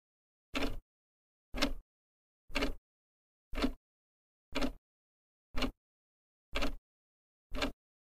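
Countdown sound effect: a short, identical hit once a second, eight times, with silence in between.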